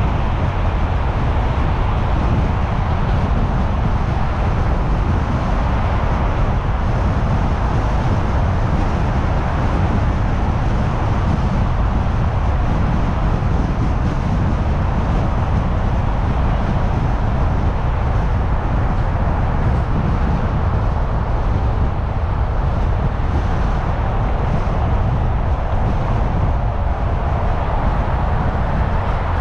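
Steady driving noise of a car moving along a city road: a constant low rumble of tyres and engine, with no distinct events.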